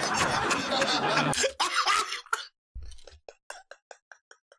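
Hearty laughter from a crowd and a man, which breaks off about a second and a half in, followed by a quick run of short breathy laughs that fade away.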